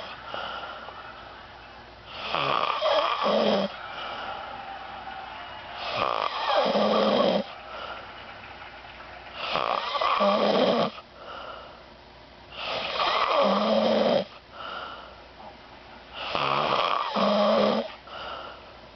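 Someone asleep snoring: five long snores, each about every three and a half seconds and ending on a low rattle, with softer breathing between them.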